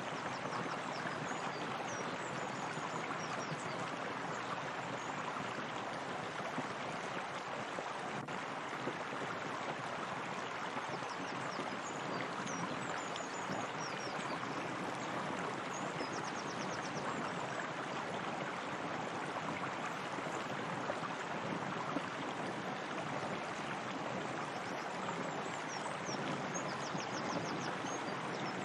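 Steady running water of a hot spring, an even rushing and splashing, with faint high-pitched chirps and short trills now and then.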